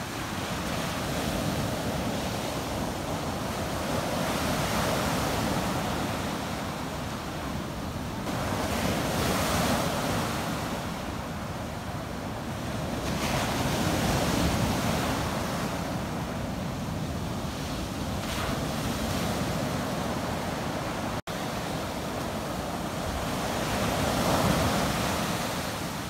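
Sea surf breaking on a sandy beach and foam washing up the sand, swelling and ebbing as each wave comes in. There is a split-second dropout in the sound about three-quarters of the way through.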